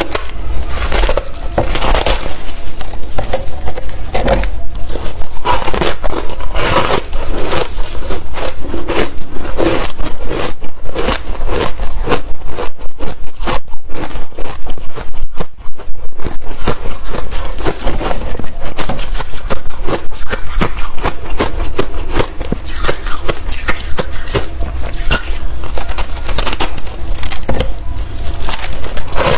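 Close-miked crunching and chewing of hard refrozen crushed ice: a dense run of cracks and crackles.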